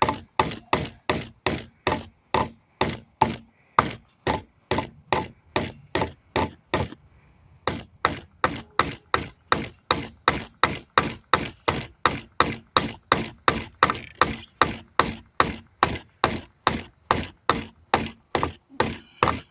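Hammer blows on a wooden pallet plank, knocking out its nails: a steady run of sharp strikes, about two and a half a second, with a brief pause about seven seconds in, then stopping just before the end.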